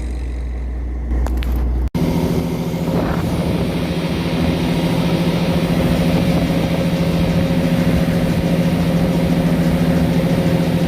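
Background music for about two seconds. After an abrupt cut, a fishing boat's engine runs steadily with an even hum, under a constant rush of wind and water.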